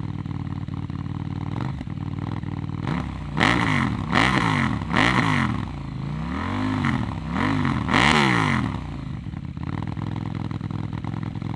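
KTM 790 Duke stunt bike's parallel-twin engine idling, with its idle raised by an ECU remap for no-hands tricks. About three seconds in, it is revved in a run of about six quick throttle blips, then drops back to idle.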